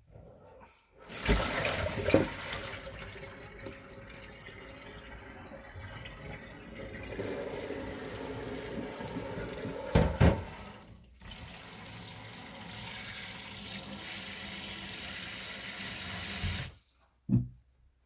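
Pull-out kitchen faucet spray head running water into a plastic tub in a stainless-steel sink, rinsing it out. The water starts about a second in and gets louder and hissier about seven seconds in, with a few sharp knocks along the way. It shuts off near the end, followed by one more thump.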